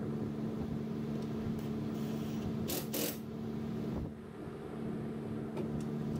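A steady low hum, with a few short metallic clicks and clinks from hand work on the golf cart's front suspension with a cordless impact driver and bolts, two sharper ones about three seconds in.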